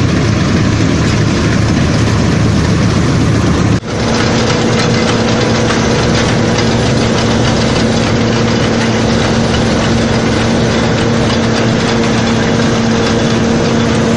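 Combine harvesters running while harvesting grain: first a Bizon ZO-56, then, after a cut about four seconds in, a John Deere 2266 with its header reel turning. The engine and threshing machinery make a loud, steady din, and in the second part a steady hum sits on top of it.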